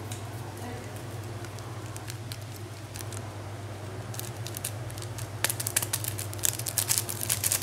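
Water bubbling in a wok of Maggi instant noodles over a steady low hum. About two thirds of the way in comes a burst of sharp, crackly clicks and scrapes as a utensil works the noodle blocks against the metal pan.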